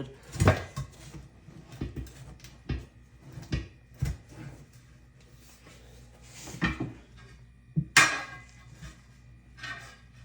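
Irregular metal clanks and knocks from a manual tire changer and its mounting bar as a tire bead is levered onto a wheel rim, bite by bite. There are about eight, the loudest about half a second in and about eight seconds in.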